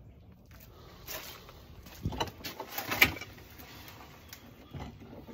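A few scattered clicks and knocks over faint background noise, the sharpest about three seconds in.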